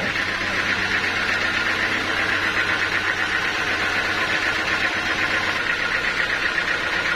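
Sawmill machinery running steadily: a constant low hum under a high, fast-fluttering buzz.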